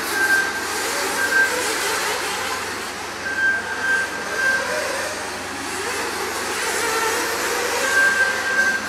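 Several nitro RC off-road cars (small two-stroke glow engines) are racing together in one continuous, overlapping drone, with the pitch rising and falling as they rev and back off. Short high beeps recur several times through it.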